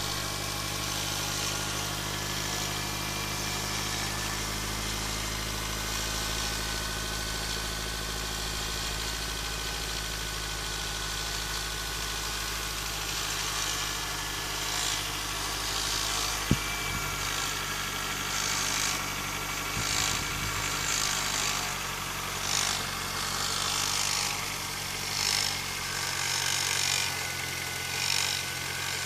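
Mitsubishi 4B11 inline-four engine running with a knock, which the owner suspects is the timing chain. A single sharp click about halfway through, and in the second half a hissing rush that swells and fades every second or two.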